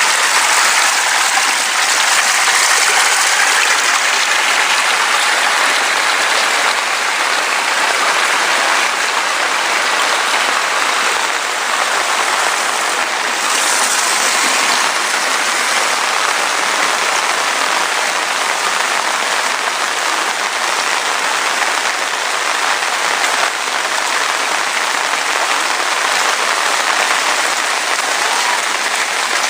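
Heavy rain falling steadily: a dense, even hiss of countless drops, briefly brighter about halfway through.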